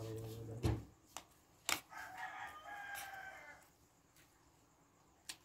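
A rooster crowing once, a call of about two seconds starting about two seconds in, with a few sharp clicks of spoon and fork against the plate around it.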